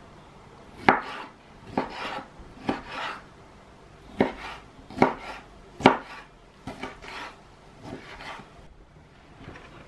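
Kitchen knife chopping tomato into small pieces on a wooden cutting board: about eight sharp knocks of the blade on the board at uneven intervals, each with a short softer swish of the cut.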